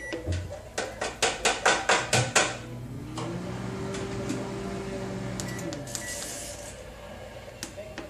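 Goldstar microwave oven: a quick, even run of about eight clicks, then the oven running with a steady hum for about three seconds before it stops.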